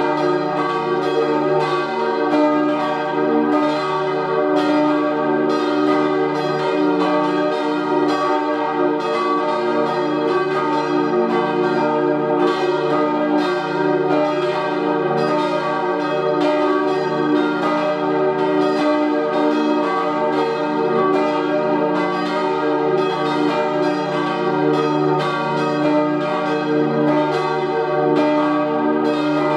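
Bronze church bells cast in 1888 by Rüetschi of Aarau, tuned to E-flat, G, B-flat and the E-flat an octave above, ringing together. Their strikes overlap in a dense, unbroken peal.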